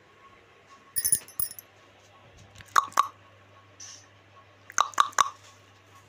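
Rose-ringed parakeet biting and tugging at a plastic bag: sharp crackles and crunches of plastic and beak in three short clusters, about two seconds apart.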